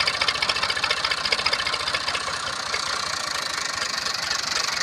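Wheat thresher and the engine driving it running steadily, with a fast, even clatter.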